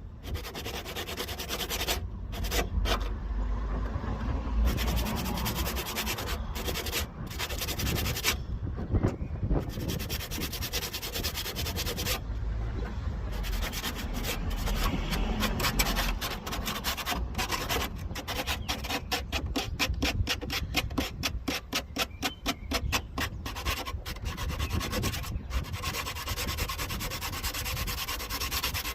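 Hand sanding with a sanding block on a car's rear wheel arch: sandpaper rubbing back and forth over old filler and paint to feather the rough areas into the surrounding paintwork. The strokes turn quicker and shorter about two-thirds of the way through.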